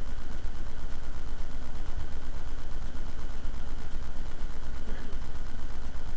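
Steady low hum and rumble with a fine pulsing high tone over it, unchanging throughout; a faint distant voice comes in about five seconds in.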